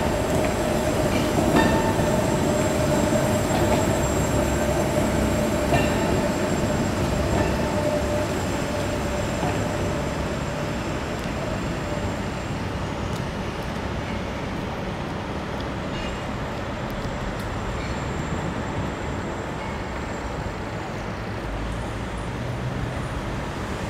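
Articulated Bernmobil streetcar running on street rails, a steady rumble with a high tone over the first half that fades away, then a lower, quieter running noise.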